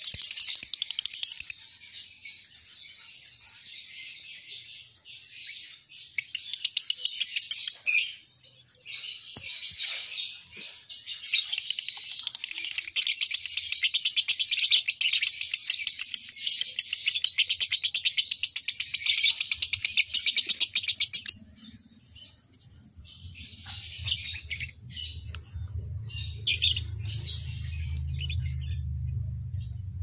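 Caged lovebird chattering in a long, very rapid trill of high chirps. The chattering starts and stops, with one unbroken run of about ten seconds that breaks off suddenly, followed by shorter bursts. A faint low hum comes in near the end.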